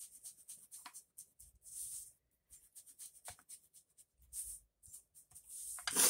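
A person sniffing several times, short nasal sniffs a couple of seconds apart, the last and loudest near the end, from allergies. Between them come faint taps and scratchy rubbing of ink being dabbed onto paper.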